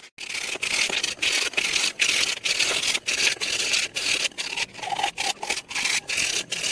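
Sandpaper rubbed back and forth over a dry coconut shell by hand, an even run of short scratchy strokes, about three a second, smoothing off the leftover fibre for a clean finish.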